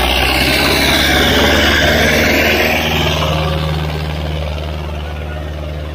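Tractor diesel engine running at a steady speed, with a loud rushing noise over it that eases after about three seconds.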